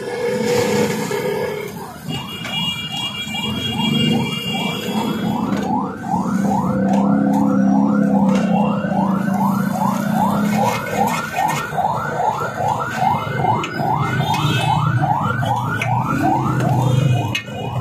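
Electronic siren sounding in quick rising sweeps, about three a second. It starts about two seconds in and stops near the end.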